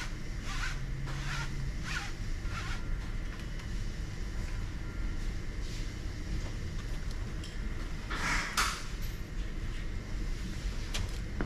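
Cloth rag wiping the drive belt of a crankshaft balancing machine, a few quick rubbing strokes, cleaning off residue that could make the belt slip. A short rustle follows about eight seconds in, over steady low shop noise.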